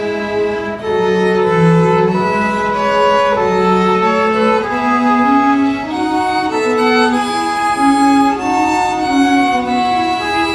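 Live bowed strings playing a Baroque piece: a violin melody moving note by note over a lower accompanying line.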